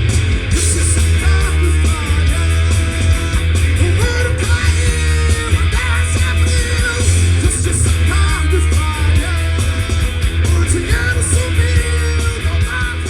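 Punk rock music: a band with electric guitars, bass and drums playing loudly and without a break.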